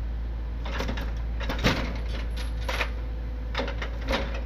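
Logs knocking and clunking as an excavator's log grapple sets them down on a flatbed truck bed: about six sharp knocks, the loudest about a second and a half in. Under them runs the steady low hum of the excavator's engine.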